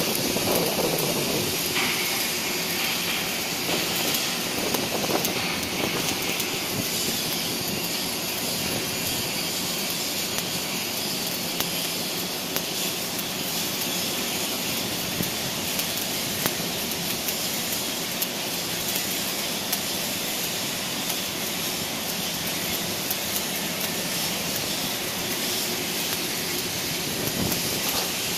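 Electric arc welding: the arc's steady crackling hiss, with scattered small pops.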